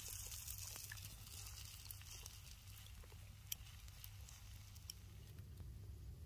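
Faint handling sounds: soft rustling and scattered small clicks, with one sharper click about three and a half seconds in, over a steady low rumble.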